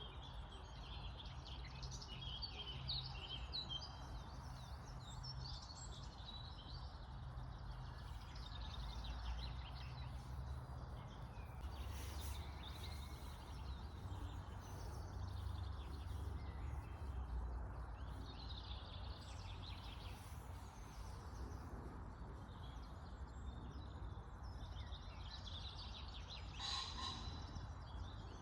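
Birds chirping, many short calls throughout, over a steady low rumble.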